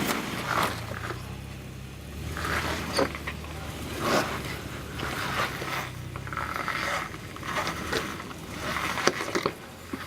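Off-road vehicle crawling slowly over rocky ground: a low engine hum that drops away about two-thirds through, with scattered scrapes and crunches of tyres and stones.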